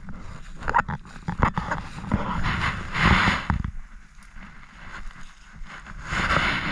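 Rustling and crackling of leafy brush and dry leaves being pushed through, with scattered sharp snaps and steps in the grass; the rustling swells about two seconds in and again near the end.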